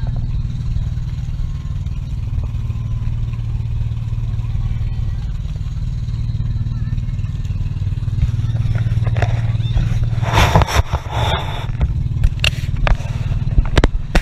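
Outrigger bangka boat's engine running steadily with a low drone, and wind rushing over the microphone as the boat moves; stronger gusts of wind noise come about ten seconds in and again near the end.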